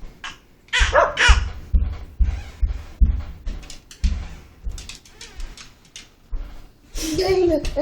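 A dog barks twice about a second in, high calls that drop in pitch, followed by a run of irregular low thumps. Near the end a person starts singing a held, wavering note.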